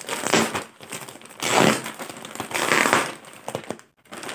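Plastic mailer bag being handled and pulled open, its thin plastic crinkling in three loud bursts.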